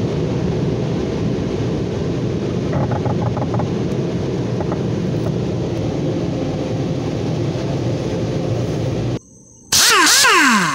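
Automatic car wash brushes and spray scrubbing over a pickup's windshield, a steady rumble heard from inside the cab. It cuts off about nine seconds in, and a short, loud logo sting with swooping tones follows near the end.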